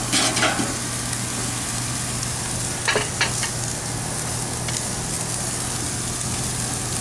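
Steady sizzling hiss from beef patties on the hot grates of a gas grill, over a low steady hum, with a few short clicks and knocks just after the start and again about three seconds in.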